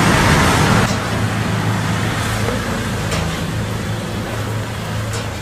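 Steady roadside traffic noise with a low engine hum, louder for the first second and then settling lower.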